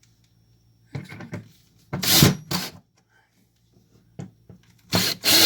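Short bursts of scraping and knocking on wood as a circuit board and its wires are handled and positioned against the benchwork: three loud bursts, the loudest about two seconds in and another near the end.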